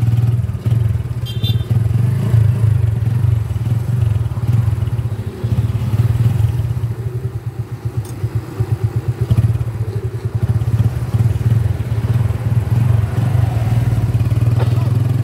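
Motorcycle engine of a tricycle, heard from inside its sidecar, running with a steady low drone. In the middle it breaks into distinct rapid pulsing beats.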